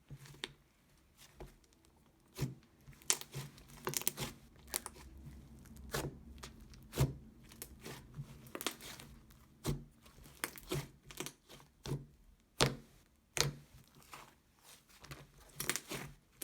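Slime being squished and stretched by hand, giving irregular sharp pops and crackles.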